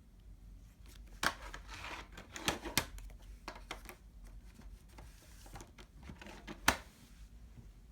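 A CD case and its packaging being handled: a series of sharp clicks and knocks with light rustling between them, the loudest click near the end.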